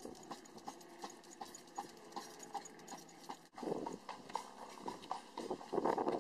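A horse's hooves clip-clopping on a paved lane at a steady trot, about three beats a second. After a cut a little past halfway, a louder rough rumble joins the hoofbeats.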